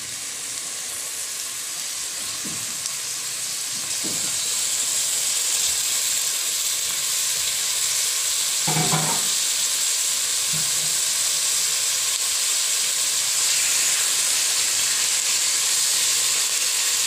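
Pork belly pieces sizzling in hot cooking oil with sautéed onion, garlic and ginger in a stainless steel pot. The sizzle builds over the first few seconds as the raw meat goes in, then holds steady.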